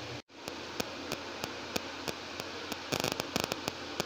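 Steady hiss with faint regular ticks about three a second, and about three seconds in a quick run of crackles as a crisp fried semolina pakoda is broken open by hand.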